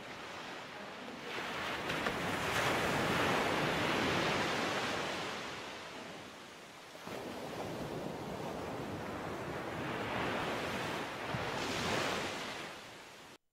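Ocean surf washing in: a steady rushing noise that swells and ebbs twice like breaking waves, then cuts off abruptly near the end.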